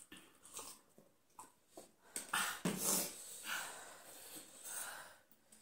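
Eating sounds from spicy ramen: a sip from a mug, slurps and hard breaths through the mouth from the chilli heat, with light scrapes of forks on plates. The loudest breathy bursts come in the middle.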